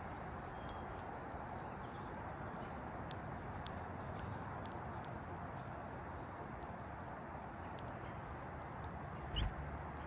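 Finches pecking at a seed tray: many sharp clicks of beaks striking and cracking sunflower seeds, with a few short, high, down-slurred chirps, over a steady background hiss. One louder low bump comes near the end.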